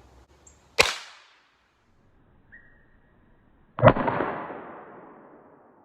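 Antique percussion boot pistol with a 2-grain black-powder charge and a wad: a sharp, short crack about a second in, then the loud shot about three seconds later, dying away over a second and a half.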